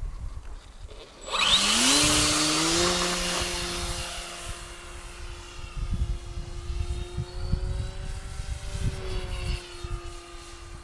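Electric RC model racing plane's motor and propeller spinning up with a quick rising whine about a second in, then holding a steady drone that gradually grows quieter.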